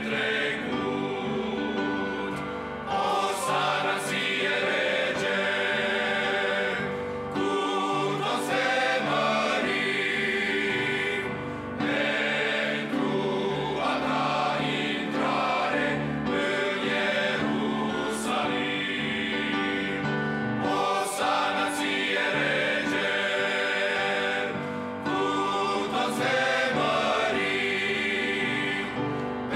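Men's choir singing a hymn in Romanian, with piano accompaniment.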